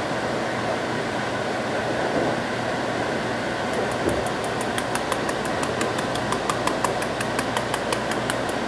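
A spice jar of dried parsley flakes being shaken over a pan, a quick run of light rattling clicks about six a second, starting about four seconds in. Under it, a steady fan-like hum.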